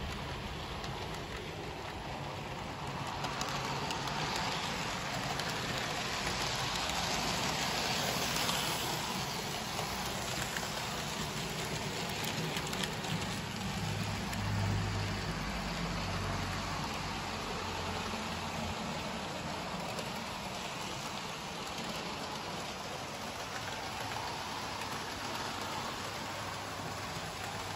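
Hornby OO gauge model trains running around the track: a steady rolling whirr of wheels on rail and small electric motors. A low motor hum swells for a couple of seconds about halfway through.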